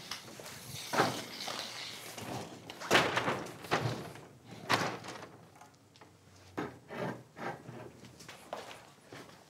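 Props being handled: a series of knocks and thumps with rustling as a large white board and a small desk lamp are carried in and set down.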